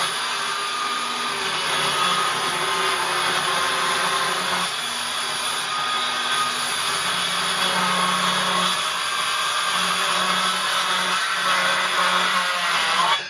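Milwaukee M18 cordless power tool running steadily, its motor hum drifting slightly up and down in pitch. The sound cuts off abruptly at the end.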